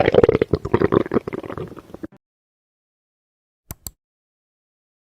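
Recording of normal bowel sounds: irregular gurgling from the gut's peristalsis, which stops about two seconds in. Two short clicks follow just before four seconds.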